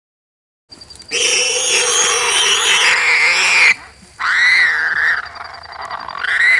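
Warthog squealing in distress while lions kill it. A loud, harsh, drawn-out scream begins about a second in, then two shorter high squeals rise and fall.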